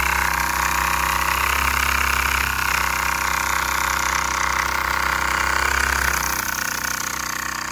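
Small homemade oscillating (wobbler) steam engine, wooden frame with a brass-tube cylinder and piston, running fast with a rapid, even mechanical clatter. It eases off a little about six and a half seconds in.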